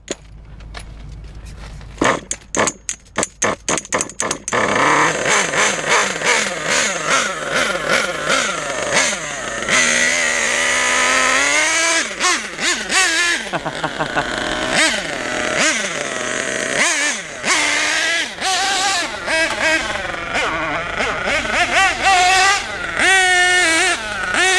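Kyosho KE21 nitro engine in an MP9 buggy, fitted with a new exhaust: a run of sharp pops about two seconds in, then the engine runs from about four and a half seconds on, its high pitch rising and falling over and over as the buggy is driven.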